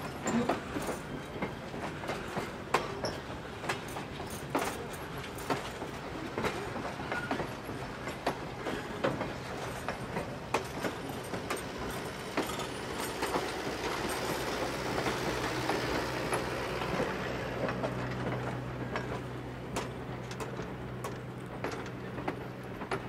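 Passenger train coaches rolling past, their wheels clicking over the rail joints with a steady rumble, growing fainter over the last few seconds as the train moves away.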